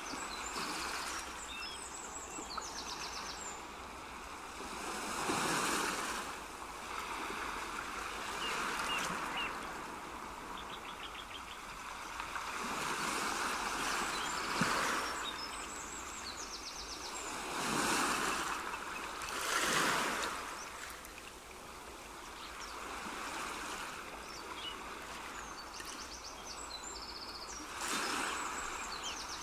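Rushing water that swells and fades every few seconds, like surf or a stream, with short high bird chirps here and there.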